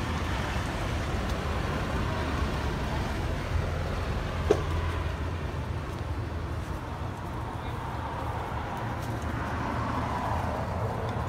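Steady low outdoor background rumble, with one short sharp click about four and a half seconds in.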